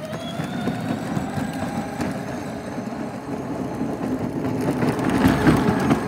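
The electric drive motors and gearboxes of a Peg Perego John Deere Gator ride-on, converted to 24 volts, whine up to full speed on a one-second ramp at 100% power, then hold a steady pitch over tyre noise on the pavement. It grows louder as the Gator passes close, about five seconds in.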